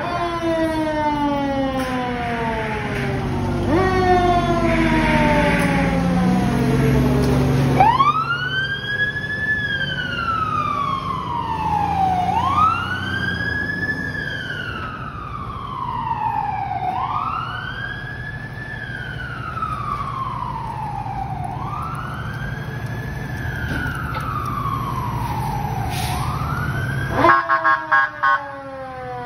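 Fire truck sirens responding to a call. First a siren tone falls again and again over the rumble of a truck engine pulling out. Then a wail rises quickly and falls slowly about every four and a half seconds. A few loud short blasts come near the end.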